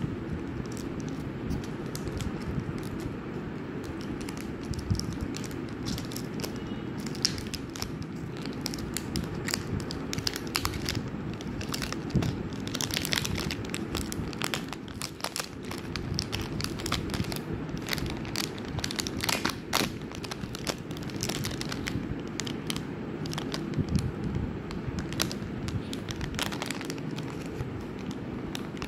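A Cadbury Dairy Milk chocolate bar's wrapper and inner foil being torn and peeled open by hand: irregular crinkling and crackling, busiest through the middle, over a steady low background noise.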